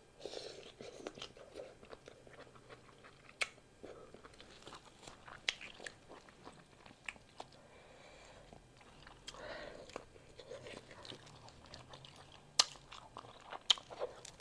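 Close-up mouth sounds of a person eating beef pho noodles: slurping noodles in and chewing, with scattered sharp clicks and smacks, the loudest near the end.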